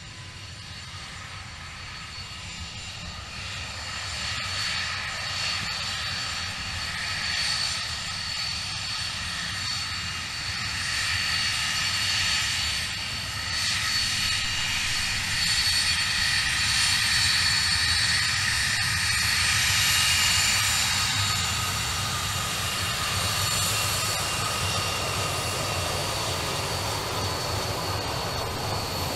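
A BAe 146-300's four Lycoming ALF502 turbofans whining steadily at taxi power as the jet taxis past. The sound grows louder over the first half as the aircraft approaches, then eases slightly near the end.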